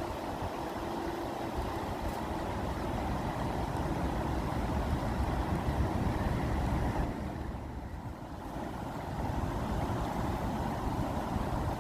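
Rushing water: a steady rush with a deep rumble, easing briefly about two-thirds of the way through.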